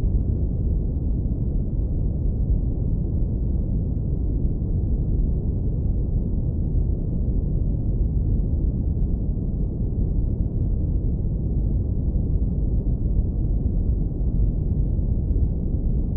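Steady deep rumbling brown noise, filtered to keep only the low frequencies, with an even level throughout.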